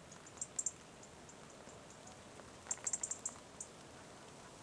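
European robin giving short, high-pitched ticking calls in quick clusters, one about half a second in and a longer run around the middle, over a faint steady hiss.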